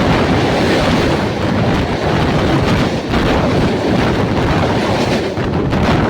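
Express train rushing past close by at about 130 km/h. The steady loud rush of air and rumble sets the microphone buffeting in the wind.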